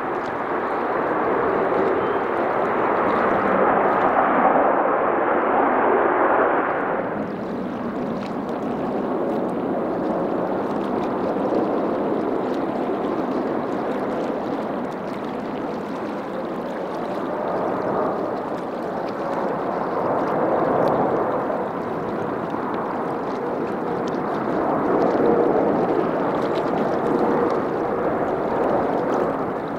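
Jet airliner engines on a heavy aircraft making its landing, heard as a loud, steady noise with a faint whine in it; the sound changes abruptly about seven seconds in.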